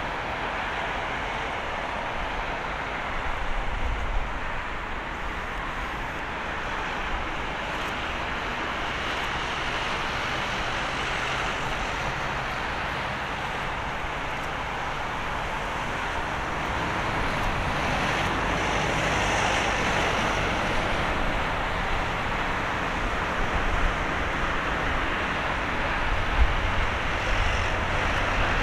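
Airbus A350-900's Rolls-Royce Trent XWB jet engines, heard at a distance as the airliner lands and rolls out along the runway: a steady rushing jet noise that grows louder from about halfway through, swelling briefly a little later.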